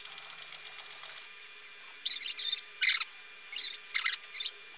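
Pepper humanoid robot's motors whirring in a series of short, high-pitched, chirp-like bursts as it rolls forward and moves its arms. The bursts start about two seconds in.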